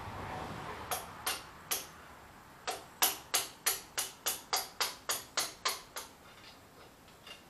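Hammer blows ringing on steel at the bucket linkage of a Diggit EM15 mini excavator, driving a loose pivot bushing. Three separate strikes, then a steady run of about a dozen at roughly three a second that stops near the end.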